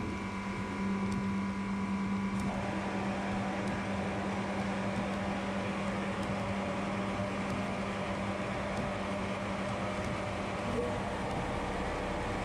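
Vapour blasting cabinet running: a steady machine hum under the hiss of the wet-blast gun spraying water and abrasive slurry against an aluminium engine case.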